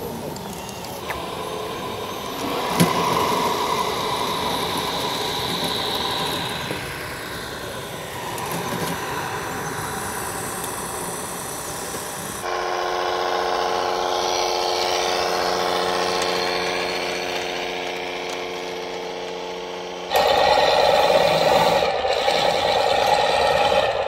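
Radio-controlled model tractors running across several cuts. First a drive whine rises and falls with speed, then a steady pitched hum, and about 20 seconds in a louder, rougher engine-like running sound from an RC pulling tractor.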